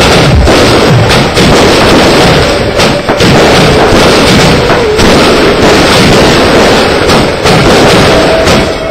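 Category 3 display fireworks going off in a rapid, dense volley: a near-continuous run of bangs and crackle, very loud throughout.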